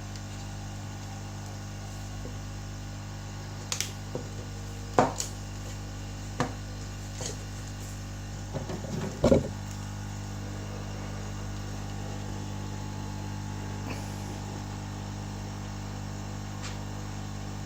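Light clicks and taps of small hand tools against a smartphone as its damaged screen is worked loose, over a steady low hum. A handful of taps come in a cluster a few seconds in, the loudest about five seconds and nine seconds in.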